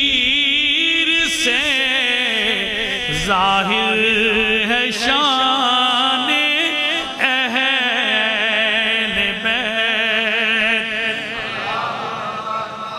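A man's voice singing an Urdu devotional poem (manqabat) in a slow melodic recitation, with long held notes that waver and bend.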